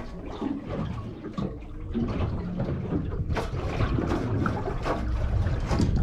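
Seawater sloshing and slapping against the hull of a small boat at sea: a steady wash broken by irregular small splashes.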